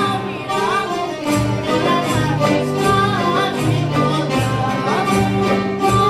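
A rebetiko song played live by an ensemble of acoustic guitars, accordion and other strings, with a steady pulsing bass beat under a gliding melody line.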